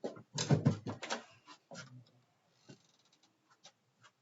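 A quick run of knocks and thuds in the first second or so, then a few faint scattered clicks.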